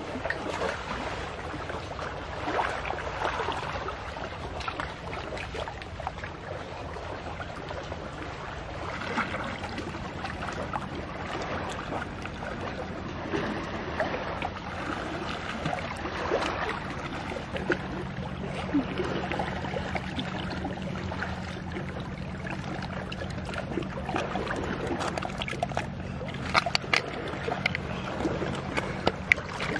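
Shallow seawater sloshing and splashing around legs and hands wading among shore rocks. A low steady hum joins about halfway through, and a few sharp clicks come near the end.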